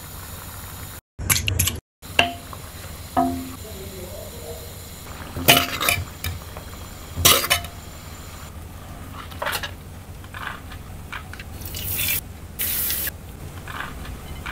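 A metal spoon and ladle stirring and scooping thin gravy in a steel pan: liquid sloshing, with a handful of sharp clinks that ring briefly off the pan. The sound drops out for about a second near the start, and in the second half softer rustling takes over.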